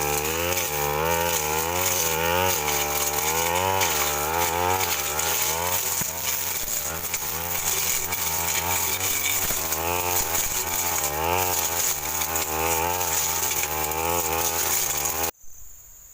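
Stihl FR 3001 two-stroke brush cutter running under load while cutting through scrub, its engine pitch rising and falling again and again as the blade bites into woody brush. The engine sound stops abruptly near the end.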